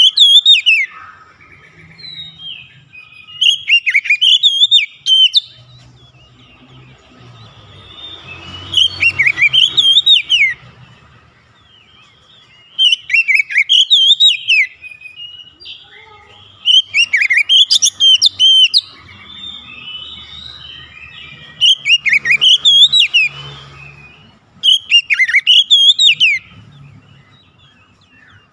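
Oriental magpie-robin singing: loud phrases of rich, quickly gliding whistles and warbles, each about two seconds long, repeated about seven times with short pauses between.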